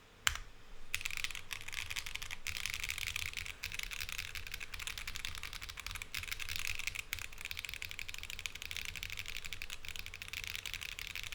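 Rapid, continuous typing on a Wuque Studios Freya mechanical keyboard fitted with Hyacinth switches, with transparent polycarbonate keycaps on a polycarbonate plate. A brief cluster of keystrokes comes first, then steady fast typing from about a second in.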